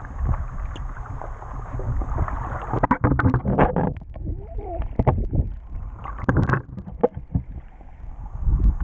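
Water sloshing and bubbling around an underwater camera near the surface: a steady low muffled rumble, broken by bursts of crackling bubbles and splashing about three seconds in, again about six seconds in, and once more near the end.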